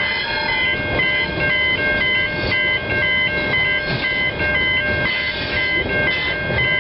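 Grain train wagons rolling past, with a steady rumble of wheels on rail and regular clacks. Over it, steady high ringing tones switch between pitches in a regular pattern.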